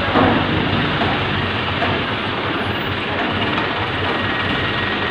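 Heavy engine of the mobile crane running steadily, a low drone under a constant mechanical noise, with a brief louder moment right at the start.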